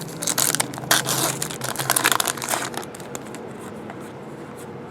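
Crinkling and rustling of trading cards and their packaging being handled, busiest in the first two and a half seconds and quieter after that.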